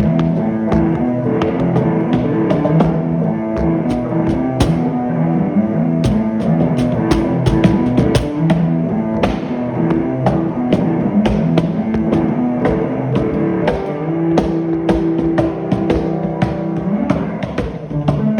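Rock music without vocals: a drum kit keeping a busy beat under sustained guitar notes.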